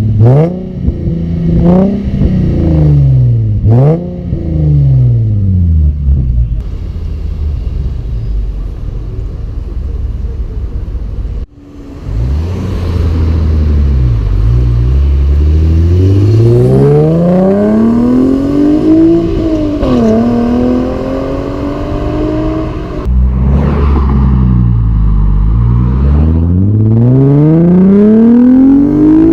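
Infiniti G37's 3.7-litre V6 exhaust, straight through test pipes with the catalytic converters removed, revving up and falling back repeatedly: quick blips at first, then longer climbs in pitch. The exhaust is loud.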